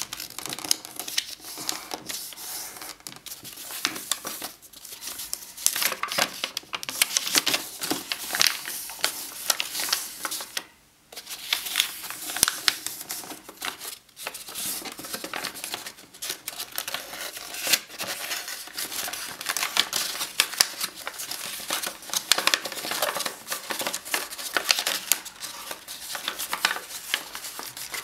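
A sheet of paper rustling and crinkling as hands fold and crease it into an origami box: a run of quick, irregular crackles, with a brief silent gap about eleven seconds in.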